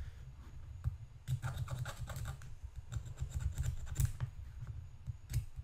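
Citadel scraping tool scraping excess plastic off the ejection pin marks on plastic model tank track links, in a rapid run of short scratching strokes that starts about a second in.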